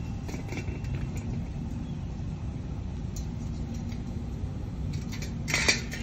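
An Indian ringneck parrot shakes and flutters its wet feathers, a brief rustling flurry near the end. Under it runs a steady low rumble.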